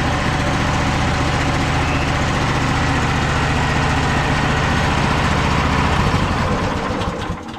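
MechMaxx 32 band sawmill's gasoline engine running steadily. About six seconds in it is switched off and slows to a stop with a few spaced-out final pulses.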